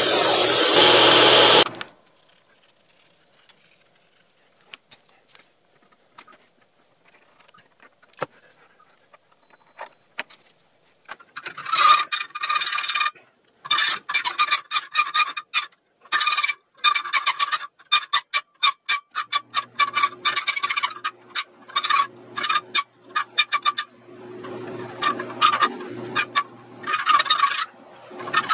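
A belt sander grinds a small steel plate for the first couple of seconds, then cuts off. After a quiet stretch, a hand file works the edge of the steel plate clamped in a vise, in runs of quick strokes with a metallic ring.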